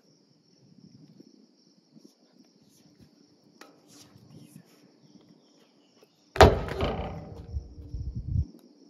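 Crickets trilling at night, a thin steady high chirring throughout. About six and a half seconds in, a sudden loud thud is followed by about two seconds of rumbling noise.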